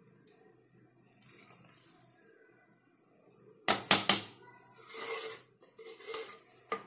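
A metal spoon knocks sharply against a clay pot several times about four seconds in, then scrapes and stirs through cooked rice, with a few lighter clinks near the end.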